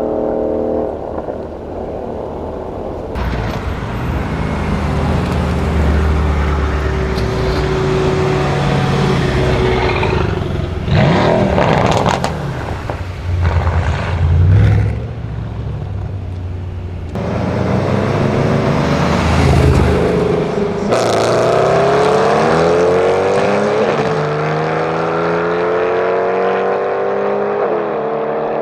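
Mercedes-AMG C63 S's twin-turbo V8 through a straight-pipe, decat exhaust, accelerating hard with a few sharp cracks at the loudest moments about eleven to fifteen seconds in. From about seventeen seconds on, the engine pitch repeatedly rises and falls as it revs.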